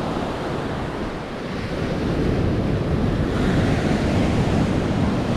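Ocean surf washing onto the beach, growing louder about two seconds in, with wind buffeting the microphone.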